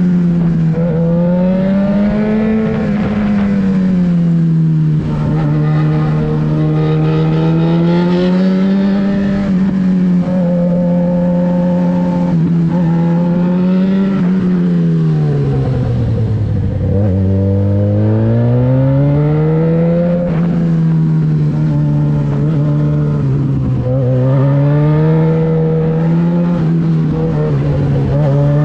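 Yamaha XJ6's 600 cc inline-four engine running through a LeoVince exhaust with the dB-killer baffle removed. The engine note rises and falls again and again as the revs change, sinking lowest about two-thirds of the way through.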